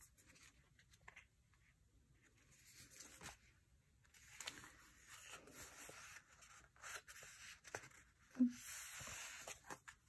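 Stickers being peeled off a sticker sheet and paper rustling, with small clicks and taps and one sharper knock about eight seconds in.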